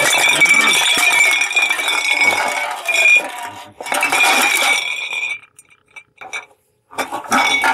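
Glass bottles and aluminium cans clinking and rattling against each other on cobblestones, dense and ringing for about five seconds, then only a few scattered clinks.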